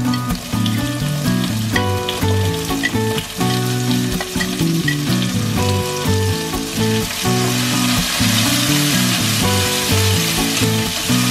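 Onion pieces sizzling in hot oil in a pan as they are added and stirred, the sizzle growing stronger about two-thirds of the way through, over background music.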